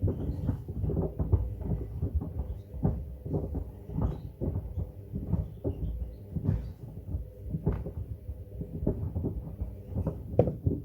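Pieces of wood knocking irregularly against the drum of a Hoover washing machine as it turns, over the steady hum of the machine's motor; the knocking and hum stop abruptly at the very end.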